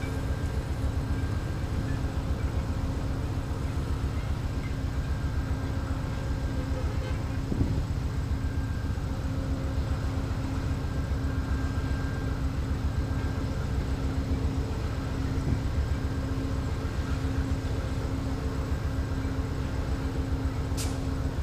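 Amtrak diesel locomotive idling with a steady hum while the train stands at the station, under low wind rumble on the microphone. One short sharp click near the end.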